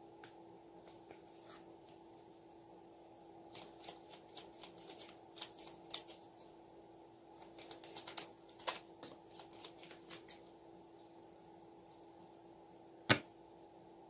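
A deck of tarot cards being shuffled and handled: a run of quick soft card snaps and rustles for several seconds, then a pause and a single sharper tap near the end, over a faint steady hum.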